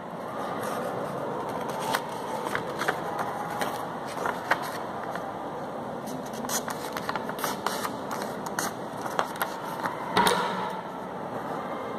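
Sheets of coloured craft paper rustling and crackling as hands handle and fold them, with many small crinkles and a louder rustle about ten seconds in.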